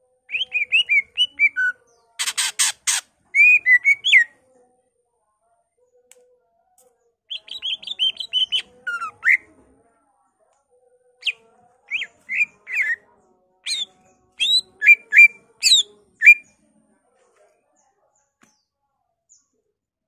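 A male greater green leafbird (cucak ijo) singing in three bursts of quick, varied chirps and whistles. A short harsh rattle comes about two seconds in.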